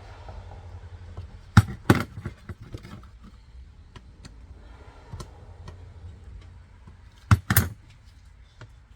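Wrench and metal clutch parts clinking as the slave cylinder's hydraulic line fittings are tightened: two pairs of sharp metal clacks, about a second and a half in and again near the end, with lighter ticks in between.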